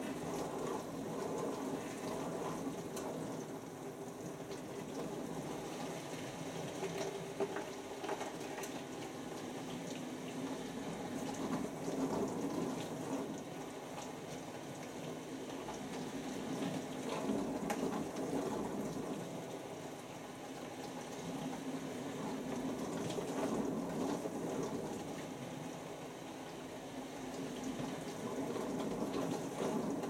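Bosch Classixx dishwasher running a wash programme: water spraying and sloshing inside the tub, the noise rising and falling every few seconds.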